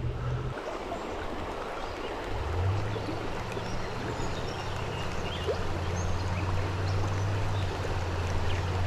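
Creek water flowing and rippling steadily through a shallow riffle. A low steady hum comes in underneath about two and a half seconds in.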